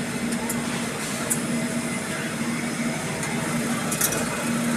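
Steady mechanical hum and whir of an IKEA self-serve soft ice cream machine dispensing soft serve into a cone, with a few light clicks.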